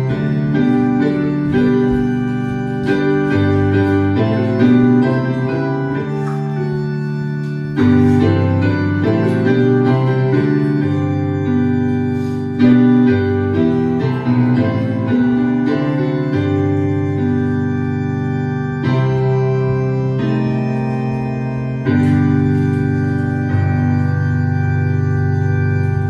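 Electric keyboard playing slow, sustained chords in an organ-like voice, moving to a new chord every few seconds.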